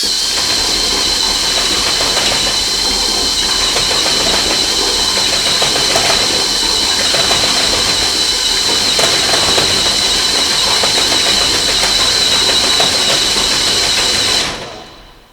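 Flex-shaft drain machine running, its spinning cable and coarse sanding head grinding tree roots and roughing up the inside of a PVC sewer pipe. It starts abruptly, runs steady with a high whine over a rough grinding noise, and winds down near the end.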